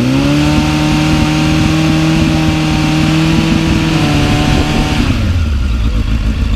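Suzuki Bandit inline-four motorcycle engine through an aftermarket exhaust. The revs rise and are held steady at about 5000 rpm for a static exhaust-noise test, then drop back to idle about five seconds in.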